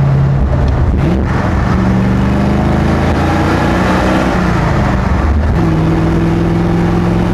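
The front-mounted 283 cubic-inch V8 of a V8-swapped Corvair running under way. Its note climbs about a second in, holds, then steps to a new steady pitch a little past five seconds.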